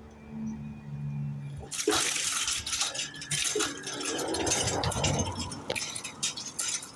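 Class 158 diesel multiple unit passing over the crossing: a low engine note, then from about two seconds in a loud rush of wheel and rail noise with repeated clicks of wheels over rail joints.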